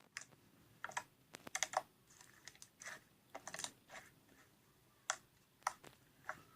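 Irregular light clicks and taps, several in quick clusters with short pauses between.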